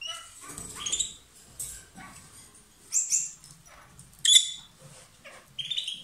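Peach-faced lovebirds giving a series of short, shrill, high chirps and squawks, several in a row. The loudest call comes a little past four seconds in.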